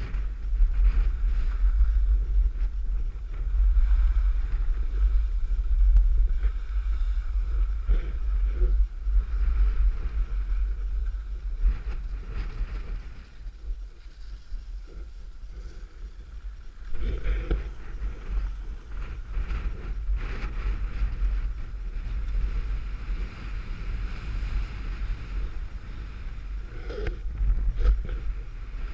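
Wind noise on the microphone of a camera carried by a downhill skier, with the skis scraping over packed snow. It drops away for a few seconds about halfway through.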